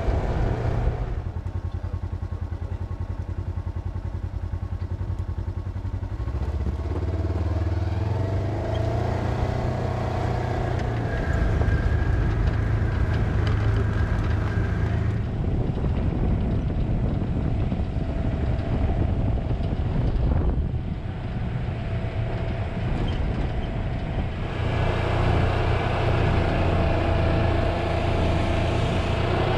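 Side-by-side utility vehicle's engine running as it drives along a dirt track, with tyre and road noise; the engine speeds up about a quarter of the way in and then holds steady.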